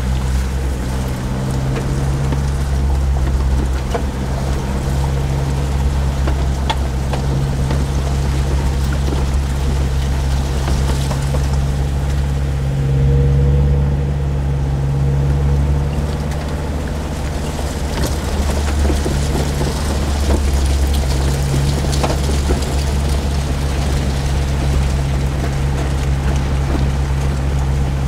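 A vehicle's engine running steadily as it drives along a shingle beach, heard from inside the cab, with scattered small crackles from the tyres rolling over pebbles.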